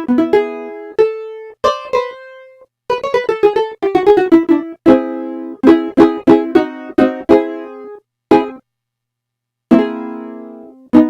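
Roland D-05 synthesizer playing a plucked-string patch that sounds like a ukulele or guitar. It plays quick runs of single notes and chords, each note struck sharply and dying away, with a pause of over a second near the end.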